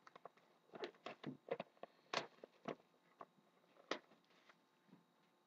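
Scattered light clicks and taps of hands handling a trading-card box and its packaging, irregular and quiet.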